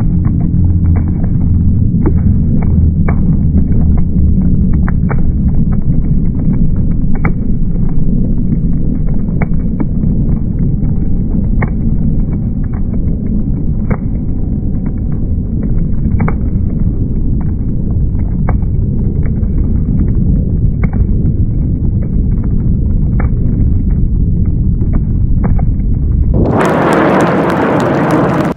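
Jet noise from BAE Hawk T1 jets with Adour turbofans, heard from the ground as a loud, continuous rumble laced with irregular crackles. About two seconds before the end it changes suddenly to a harsher hiss that covers every pitch.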